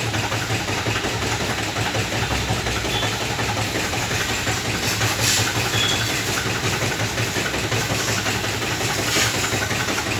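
BMW four-cylinder diesel engine idling steadily, with the noise that the mechanic traces to the crankshaft damper pulley.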